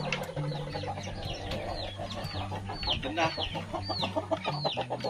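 A flock of three-month-old chickens, mostly Rhode Island Reds, clucking, with repeated high peeping calls that slide downward, about two a second.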